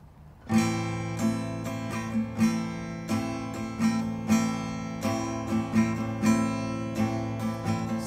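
Guitar starting about half a second in and playing a song's introduction, notes picked at a steady pace over ringing chords, with no voice yet.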